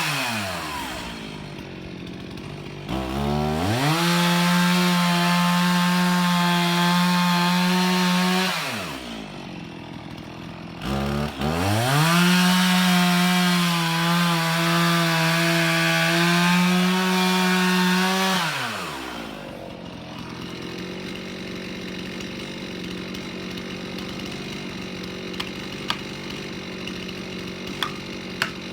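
Two-stroke chainsaw run at full throttle in two long stretches of several seconds, dropping back to idle between them, then idling steadily for the last third, with a few sharp clicks near the end.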